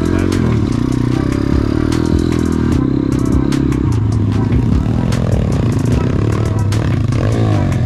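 Pit bike engine running at low revs, its pitch swelling up and down a few times in the second half as the throttle is worked. Frequent knocks and clicks come from the bike working over rough ground.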